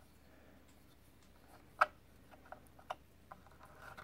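Screwdriver and screws on the top cover of a Singer 500A sewing machine, making a few faint metallic clicks and ticks as the screws are worked out, with one sharper click a little under two seconds in.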